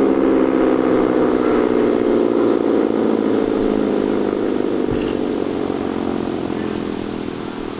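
Sentry 16V1T-B single-tone rotating tornado siren winding down, its pitch falling slowly as it fades.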